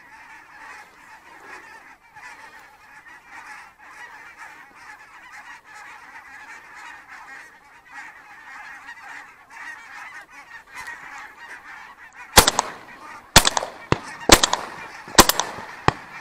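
A large flock of geese honking overhead in a continuous, many-voiced chorus. About twelve seconds in, four loud shotgun shots ring out about a second apart.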